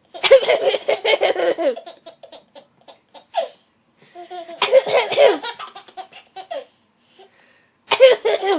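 A ten-month-old baby belly-laughing in three loud bouts, the first two lasting about two seconds each, with short pauses between.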